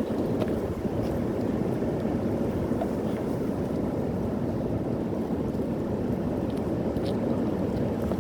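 Strong wind buffeting the microphone: a steady low rumble with a few faint clicks.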